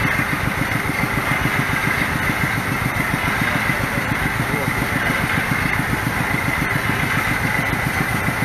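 Engine of a small water-well drilling rig running steadily with a fast, even chugging as the rig drills. Water splashes and sprays out around the drill pipe at the borehole.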